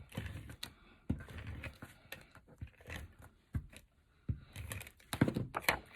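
Paper and cardstock being handled: irregular rustling and crinkling with scattered light taps and clicks as the pieces are moved and pressed down.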